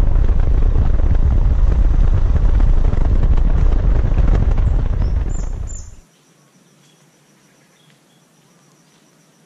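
Loud wind rumble on the microphone of a handlebar-mounted camera on a small motorcycle riding along, which cuts off about six seconds in. Then a faint, quiet field with small high chirps repeating a few times a second.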